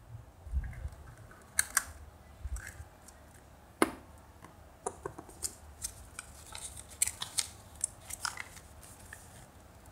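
Hands handling a plastic gashapon capsule and unwrapping its contents: sharp plastic clicks and crinkling of the paper insert and plastic bag, with a few low bumps early on. The loudest click comes about four seconds in, then a dense run of crinkles and clicks follows.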